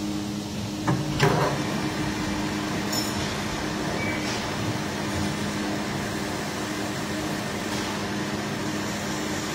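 Metal lathe starting about a second in with a short clunk and clatter, then running steadily with a Honda GX160 crankshaft turning in the chuck, set up for a light cut to bring the crank's end-play dimension down toward its minimum.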